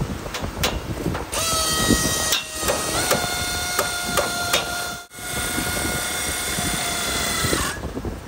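A motor-driven machine whines steadily from about a second in until near the end, its pitch stepping up slightly about three seconds in, among scattered knocks and clanks.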